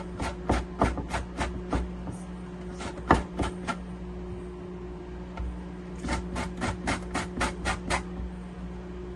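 Quick rhythmic scraping strokes of a kitchen utensil working at lemons or lemon juice, about three a second, in two runs with a pause of about two seconds between them, over a steady low hum.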